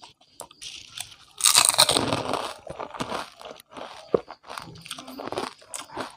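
Close-miked biting and chewing of crunchy food: a loud crunch about a second and a half in, then wet chewing with crisp crackles and clicks.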